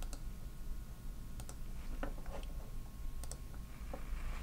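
Several light, scattered clicks from computer controls, over a low steady hum.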